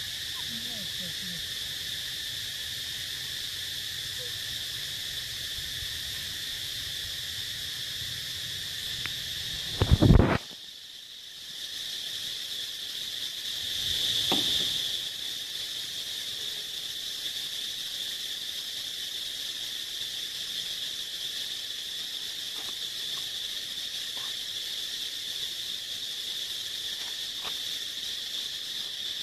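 Steady high-pitched insect chorus droning throughout. It swells louder for a moment about halfway through. A brief loud thump comes about ten seconds in.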